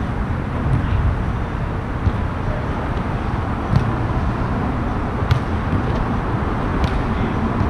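Steady low rumble of road traffic on the overpass above. Three sharp smacks of a volleyball being struck come about a second and a half apart in the second half.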